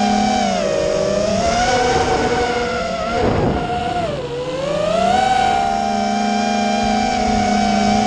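FPV quadcopter's brushless motors and propellers whining, the pitch falling as the throttle is cut and climbing back as it is punched. The deepest drop comes a little past the middle, with a short rush of wind just before it.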